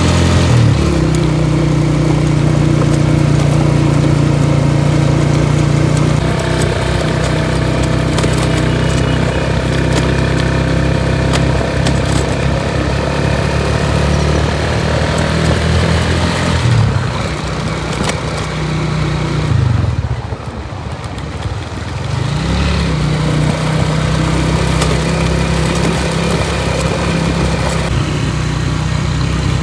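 Motorcycle engine running while riding, its note dipping briefly a few times as it changes speed. About twenty seconds in it eases off and quietens, then picks up again.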